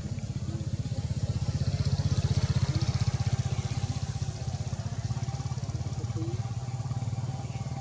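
A motor vehicle's engine running close by, a low, rapidly pulsing rumble that swells for a couple of seconds and then eases.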